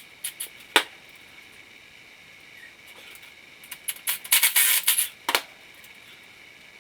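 Sharp metallic clicks and rattles of hand tools at work on the engine while a two-jaw puller is fitted: a single click about a second in, then a quick run of clinks and rattles a few seconds later.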